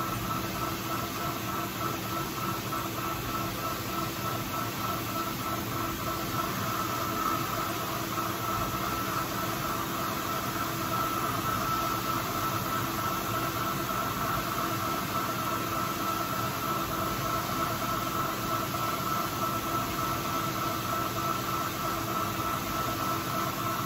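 Old manual lathe running at a steady speed: a steady whine over a hum from its motor and gearing, without break or change.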